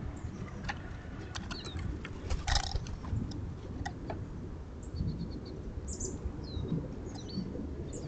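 Low rumble of wind on the microphone, with small birds chirping and giving short quick series of high thin notes throughout. A brief rustle sounds about two and a half seconds in.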